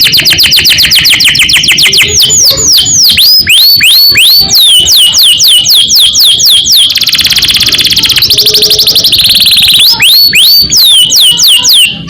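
Domestic canary singing a loud rolling song: fast, buzzy trills of rapidly repeated notes that alternate with runs of quick swooping whistled notes, about three a second.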